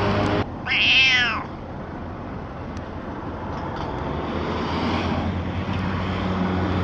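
A domestic cat meows once, loudly, about half a second in, the call rising and then falling in pitch. After it, steady street background noise continues, with a low engine hum building toward the end.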